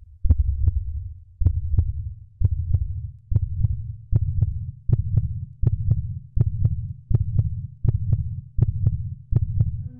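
Heartbeat sound effect: deep low thuds about once a second, each with a sharp click on top, gradually speeding up.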